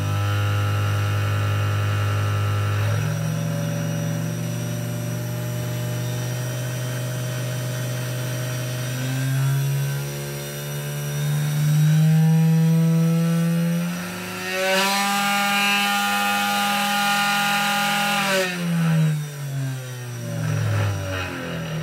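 A 12,000 RPM 775 DC spindle motor on a CNC 3018 Pro mini CNC running, its speed changed on a PWM speed controller. The whine steps up in pitch, holds at its highest about three-quarters of the way through, then glides down and winds down near the end.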